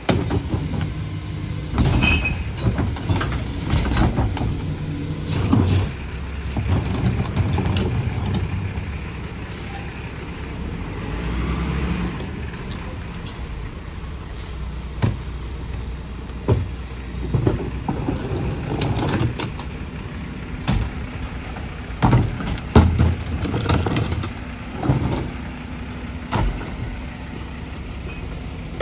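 McNeilus rear-loader garbage truck's diesel engine running steadily, with repeated bangs and knocks as plastic trash carts are tipped and rapped against the rear hopper.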